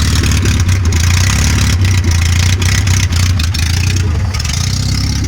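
Fiat Uno engine running with a loud exhaust noise, a deep pulsing rasp that holds steady: the exhaust pipe has broken and separated at its fork joint, so the exhaust escapes there.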